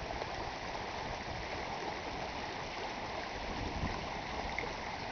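Shallow muddy floodwater running down a dry desert wash in the first minutes of a flash flood: a steady rush of flowing water.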